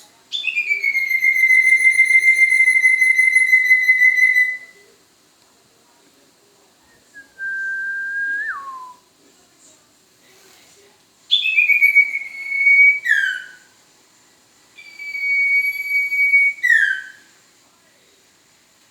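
Owl-calling lure: clear whistled notes, four of them, the first held for about four seconds, another starting high and sliding down, most ending in a quick drop in pitch.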